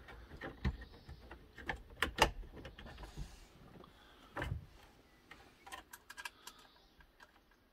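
Irregular light clicks and taps of wiring plugs and cables being handled and pushed into the plastic dashboard's radio opening, with a duller bump about four and a half seconds in.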